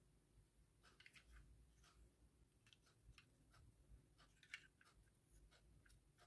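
Near silence with faint, scattered small clicks and rustles of fingers handling a plastic handheld mini sewing machine and its thread.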